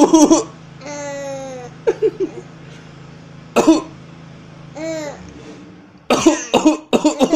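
A parent coughing in short, sharp bursts: once at the start, again about halfway, and a quick run of coughs near the end. Between the coughs a three-month-old baby laughs in long, high, falling squeals.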